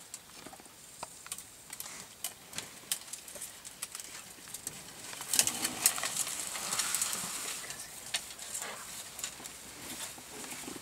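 African elephant browsing in a leafy bush, twigs snapping and leaves rustling as it pulls at the branches: scattered sharp cracks, with a louder spell of crackling and rustling about halfway through.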